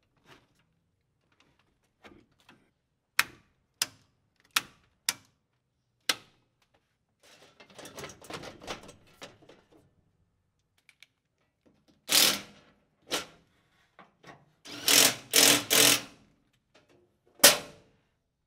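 Metal clicks, clanks and rattles from work on a steel electrical breaker panel and its sheet-metal cover: a few sharp clicks first, then a louder run of clanks and rattles in the second half, ending with one sharp knock.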